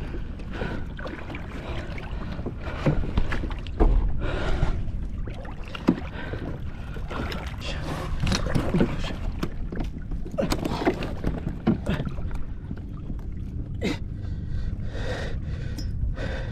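Water splashing and irregular knocks against a kayak as a Spanish mackerel is gaffed and hauled aboard, with the angler's heavy gasping breaths.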